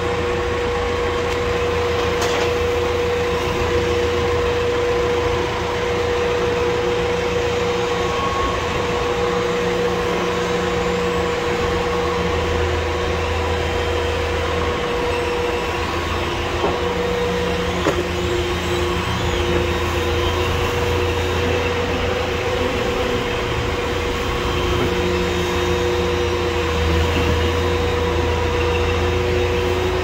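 KUHN vertical twin-auger feed mixer running with a round bale of hay in the tub, the augers churning and breaking the bale apart. The machinery gives a loud, steady drone with a constant whine, and there is one sharp click about two-thirds of the way through.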